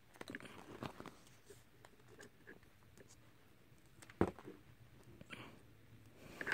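Faint rustling and small clicks of a plastic sticker sheet being handled and stickers peeled off by hand, with one sharp click about four seconds in and a few more clicks near the end.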